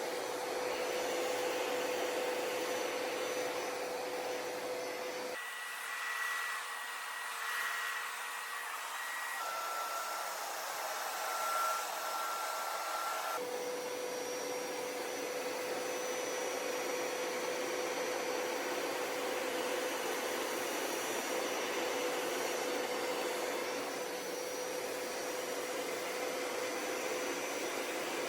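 Hoover PowerScrub Deluxe carpet cleaner running, a steady motor rush with a constant whine. From about five seconds in to about thirteen seconds in the sound abruptly turns thinner, with a higher whine that changes pitch once partway, before the fuller running sound returns.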